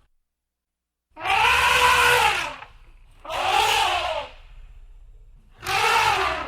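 Elephant trumpeting: three loud, brassy calls, the first about a second in and lasting over a second, the next two shorter. Each arches up in pitch and then falls.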